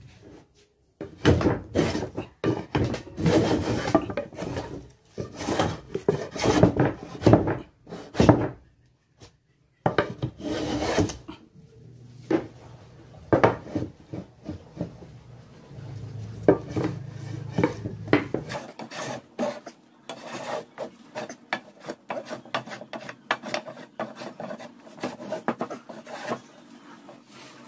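Old wooden hand plane shaving a length of lumber by hand: a run of rough rasping strokes, long ones of a second or two at first, then quicker, shorter strokes through the second half.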